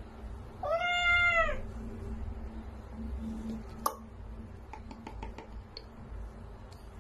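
A kitten meows once while being bathed: a single call about a second long that rises and then falls in pitch. A sharp click follows a few seconds later, then a few faint ticks.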